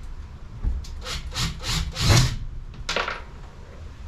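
A handful of short scraping strokes of something rubbing against plywood, the loudest about two seconds in.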